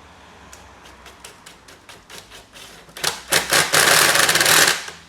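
A screw being driven into the carpet cleaner's handle with a screwdriver: scattered clicks, then about three seconds in a loud, rapid clicking rattle that stops shortly before the end.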